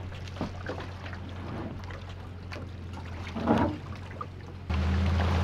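Pickup truck engine idling at a boat ramp as an aluminium jon boat floats off its trailer, with water trickling and lapping and small knocks of the hull, one louder knock about halfway through. Near the end the engine gets suddenly louder and water rushes as the truck pulls the trailer out.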